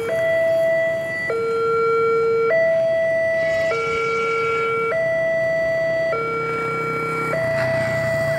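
Railway level-crossing warning alarm sounding, a higher and a lower electronic tone taking turns about every second and a quarter while the barriers are down for an approaching train.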